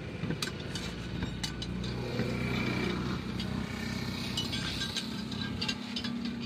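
Steel tyre levers clicking and clinking against a truck wheel's steel rim as the tyre bead is pried off. Under it runs the steady hum of an engine.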